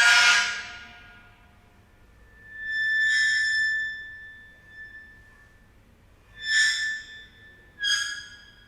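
Metal scraped across ceramic tile, giving high-pitched screeching squeals: a sharp one at the start, a longer drawn-out one about two and a half seconds in, then two shorter ones near the end.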